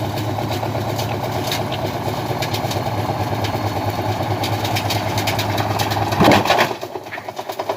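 An engine or motor running steadily, with a brief loud sound about six seconds in, after which it quietens.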